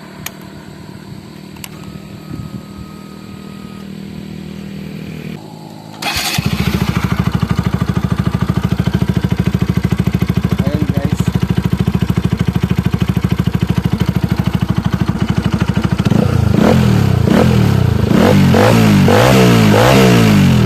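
Rouser RS200 single-cylinder engine breathing through a gutted catalytic converter repacked with carbon fiber ('kalkal' pipe). It starts about six seconds in and idles with a steady, rapid exhaust beat, then is revved up and down repeatedly over the last few seconds. Before it starts there are only a few faint clicks.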